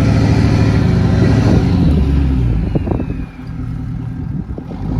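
Ford F-350 pickup's engine revving hard, then easing off about two seconds in, with scattered knocks and clatter before it revs up again near the end.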